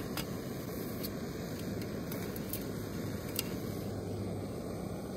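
Small backpacking gas canister stove burning with a steady low rush. A few light clicks of the metal mug being handled sound over it.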